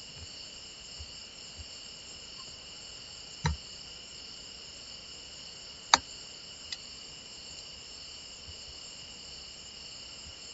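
Steady high-pitched background drone made of several thin tones, with a couple of sharp mouse clicks about three and a half and six seconds in, and a softer click just after.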